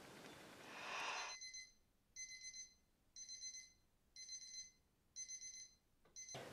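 An electronic alarm beeping: a stuttering beep repeated about once a second, five times, then cut off abruptly, waking the sleeper. A brief rush of noise comes just before the first beep.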